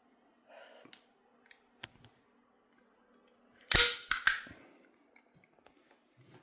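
Staple gun fired: one loud sharp snap a little past the middle, followed quickly by two smaller clicks, as a staple is driven through a playing card into bare skin on the chest.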